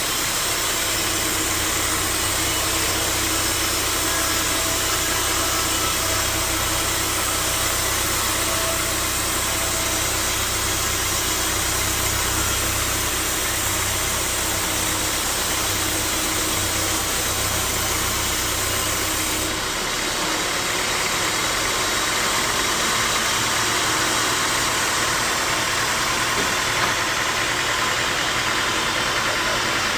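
Sawmill machinery running steadily, a motor's low hum under a broad mechanical noise. About two-thirds of the way through, the low hum drops away suddenly and the noise shifts.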